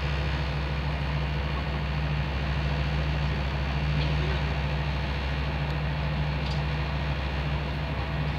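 Train running at speed heard from inside a Corail passenger coach: a steady low rumble and hum of the wheels on the rails, which steps up suddenly at the start.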